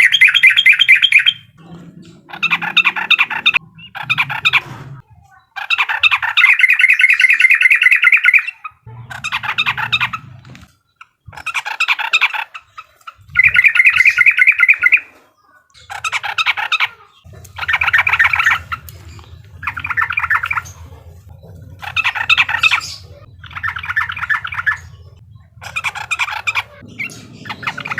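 Yellow-vented bulbul (trucukan) singing its chattering 'uklik' song in about a dozen loud bursts, each a second or two of rapid notes, separated by short pauses.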